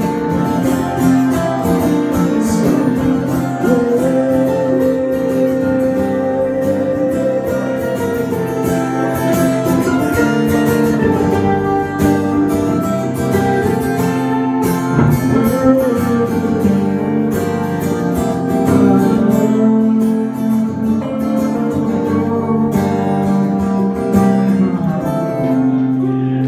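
Live acoustic and electric guitars playing an instrumental passage of a song, the acoustic guitar strumming under the electric guitar's sustained and bending notes.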